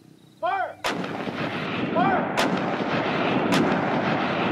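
Battle sound effect of gunfire and shellfire: a sharp report about a second in sets off a continuous din of battle, with further sharp cracks about every second and a half.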